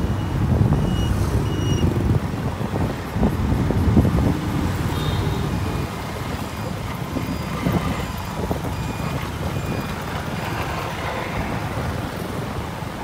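Motorbike and car traffic on a city street, heard from within the moving traffic, with wind rumble on the microphone. A few short high beeps sound, two of them about a second in.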